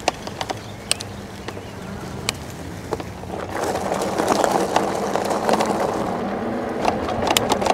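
Fat-tire electric bike ridden over rough ground: rolling tyre noise with scattered clicks and rattles over a steady low hum. The rolling noise grows louder about three and a half seconds in.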